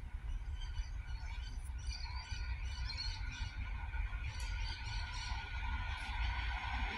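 Small birds chirping while a 3000/3100 class diesel railcar set approaches. Its steady hum and whine grow louder from about two seconds in, over a constant low rumble.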